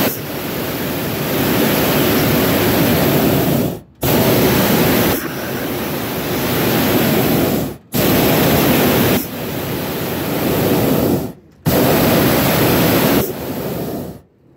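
Hot-air balloon's propane burner firing from the basket during lift-off: a steady roar in long blasts of about four seconds, each stopping abruptly, four times over.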